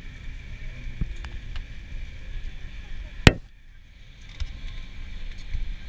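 Steady low rumble of a moving vehicle heard from inside. About halfway through there is one sharp click, after which the sound briefly drops away for about a second.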